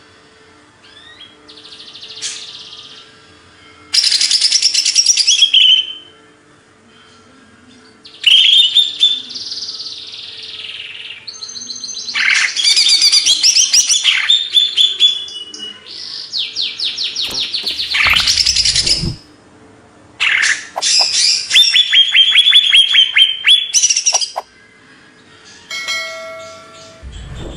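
Greater green leafbird (cucak ijo) singing loudly in a string of phrases of a few seconds each, with short pauses between. The phrases mix sweeping whistles and chatter with fast trills of rapidly repeated notes.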